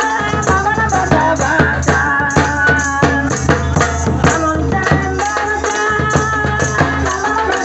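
Santali folk dance music: hand drums beating a steady, even rhythm under a wavering melody line.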